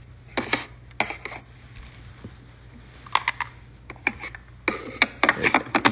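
Trading cards being handled and laid out on a table: irregular sharp clicks and rustles, a few at first and a dense run near the end.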